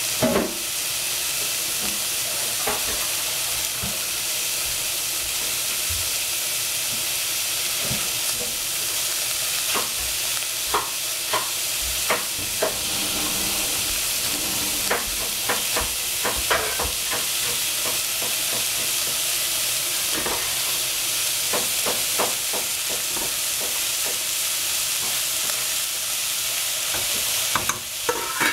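Sliced onions frying in a stainless steel saucepan: a steady sizzle with scattered crackles and pops.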